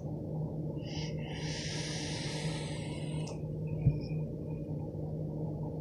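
A long draw on a box-mod vape: a steady airy hiss, lasting about two seconds, as air is pulled through the firing tank atomizer. A brief low thump follows, then a soft breath out.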